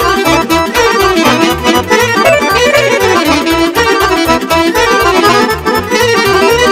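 Accordion playing a quick melody over a steady bass beat, an instrumental passage of Romanian folk dance music with no singing.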